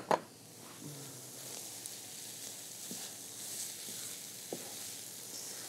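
Vegetarian meat filling with onion and marinara sizzling in a skillet as it is stirred with a wooden spatula. Two sharp knocks at the start and a couple of light taps later.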